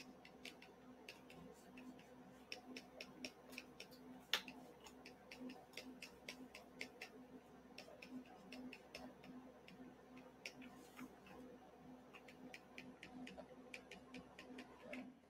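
Faint, uneven runs of small clicks, a few a second, with one louder click about four seconds in, over a faint steady hum: a computer mouse clicked repeatedly during brush work.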